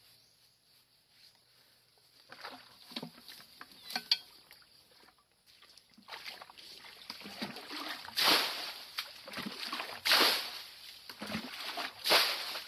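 Water being bailed out of a shallow pool with a plastic bucket. Softer sloshing comes first, then three loud splashes about two seconds apart in the second half as bucketfuls are scooped up and thrown out.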